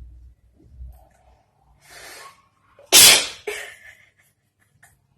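A woman sneezing once, loudly, about three seconds in, after a quick breathy intake of air. The sneeze is set off by a thin twisted cotton wick tickling the inside of her nose.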